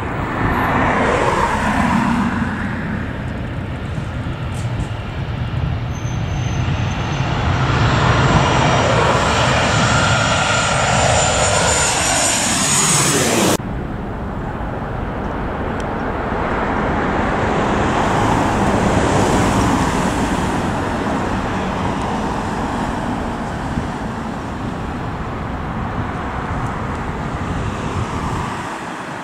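Jet airliner on landing approach passing close overhead, its engine whine falling in pitch as it goes by. About halfway through it cuts off suddenly to the steady rumble of a four-engine Boeing 747-8 on approach, swelling as it nears and then easing.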